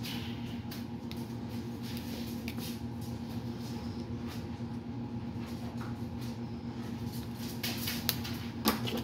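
Pen writing on a paper challenge sheet on a table, with soft paper and hand-handling rustles and a louder brief rustle near the end, over a steady low hum.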